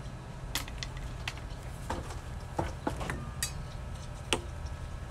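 Irregular light metallic clicks and taps, about nine of them, over a steady low rumble, from tools and metal being handled at the condensing unit's coil.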